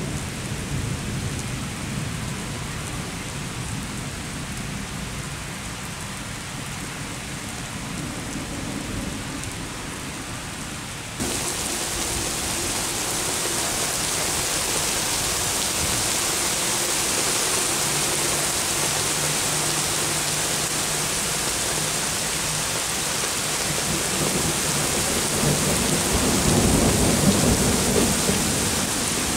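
Night thunderstorm: steady rain with thunder. About a third of the way in, the rain abruptly becomes louder and hissier, and near the end a louder rumble of thunder rolls in.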